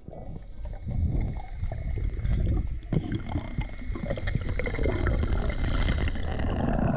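Underwater sound picked up by a diver's camera: low churning water noise that swells and fades as the diver swims, with scattered faint clicks and a steady high whine that dips slightly in pitch near the end.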